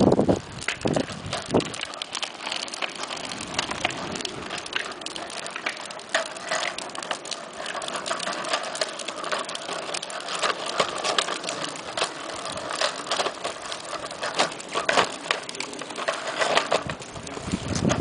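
Child's plastic tricycle and a small training-wheel bike rolling along a concrete sidewalk, hard wheels rattling and clicking steadily over the pavement.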